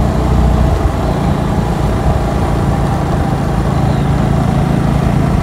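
Motor scooter engine running steadily while being ridden, with a steady rushing noise over it.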